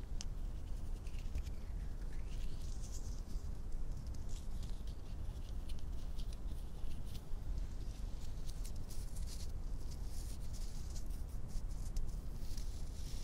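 Hands rubbing and scratching close to a microphone: many quick, light crackling scratches over a steady low rumble.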